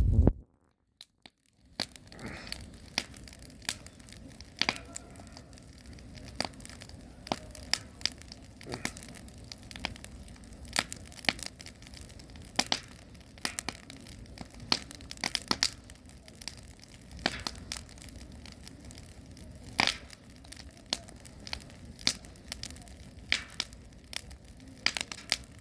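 Firewood burning in a campfire, crackling with irregular sharp pops and snaps over a low steady hiss. The sound starts after a short silence about a second and a half in.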